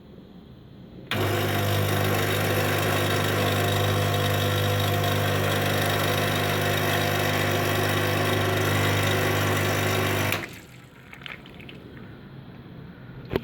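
Electric coffee grinder motor running steadily for about nine seconds with a low hum, switching on abruptly about a second in and cutting off sharply, followed by a few faint knocks.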